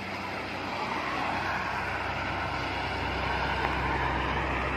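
Steady road noise of coaches and cars passing on a toll road, with a low engine and tyre rumble that swells about two seconds in as more vehicles approach.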